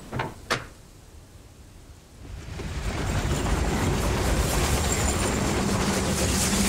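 Two sharp knocks just after the start, then a passenger train passing over a bridge: a rumble that builds from about two seconds in and runs on steadily.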